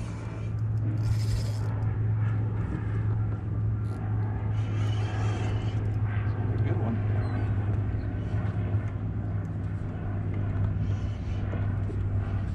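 Boat motor running with a steady low drone.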